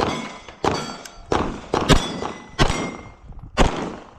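A string of pistol shots fired at steel plates, about six cracks spaced roughly half a second to a second apart. Each shot is followed by the high ring of a steel plate being hit.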